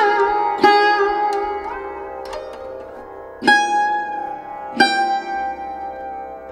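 Background music on a plucked string instrument: single notes plucked every second or so, each ringing out slowly, some sliding in pitch.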